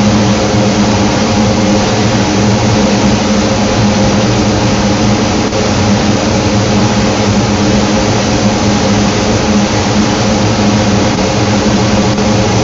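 Bizzozero Mica TC 1600 slitter-scorer with vacuum belt feeder running: a loud, steady machine hum over an even hiss, with no separate strokes or changes.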